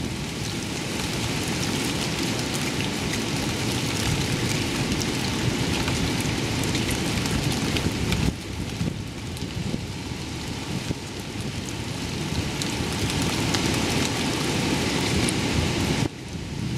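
Heavy rain falling steadily on wet paving, leaves and a metal bench, with a low wind rumble under it. It eases for a moment about eight seconds in, then builds again.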